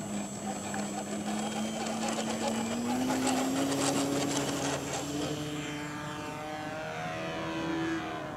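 Electric RC airplane's Rimfire .60 brushless motor and 13x6.5 propeller buzzing through a takeoff run on grass and into the climb. The pitch steps up about a third of the way in and rises again near the end.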